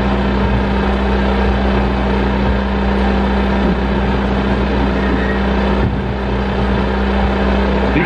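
Experimental electronic noise music: a loud, steady low drone with a held hum-like tone under a dense wash of noise, unchanging apart from a brief dip near the end.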